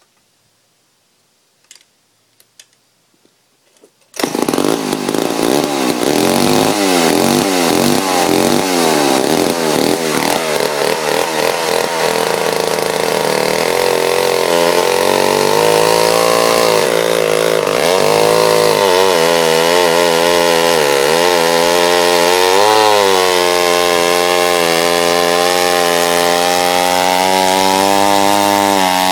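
A few faint clicks, then about four seconds in a Wright C70 116 cc vintage chainsaw bursts into loud running. Its engine pitch wobbles rapidly at first, then holds steadier with repeated dips in pitch as the saw is loaded cutting wood.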